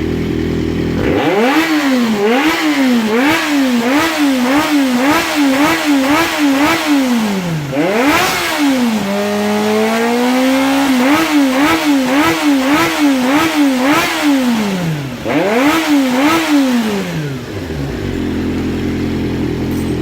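Honda CBX400F's air-cooled inline-four engine, freshly overhauled with rebuilt carburettors, idling and then blipped on the throttle over and over, about two quick revs a second. Near the middle it is held briefly at a steady higher speed, then blipped again, and settles back to idle near the end.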